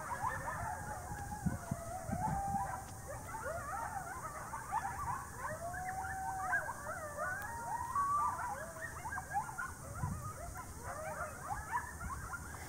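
A pack of wild canids, announced as live wolf howling, howling and yipping in chorus, with many overlapping rising and falling calls.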